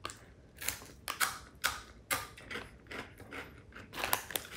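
Someone chewing crunchy Japanese curry-flavoured fries with their mouth at the microphone, a dense crunch. It comes as a steady run of crisp crunches, about two or three a second.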